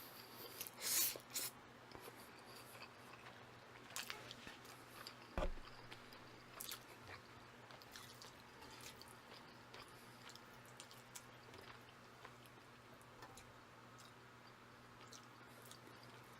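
Close-miked chewing of black-bean-sauce instant noodles, with wet mouth smacks and clicks that come thick in the first six seconds and grow sparse and faint after.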